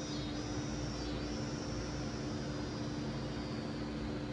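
Steady machine hum with a constant low drone and a hiss over it, unchanging throughout.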